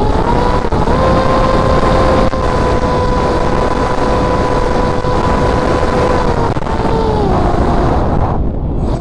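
Spec Wing flying wing's motor and propeller whining at a steady pitch, which falls in steps in the last few seconds, over heavy wind rush on the onboard camera's microphone.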